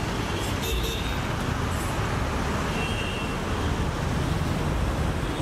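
Steady rush of road traffic going by on a busy street, with a low rumble from passing vehicles.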